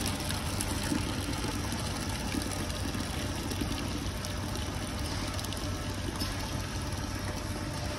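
Fruit grinding and piston press machine running with a steady low motor hum.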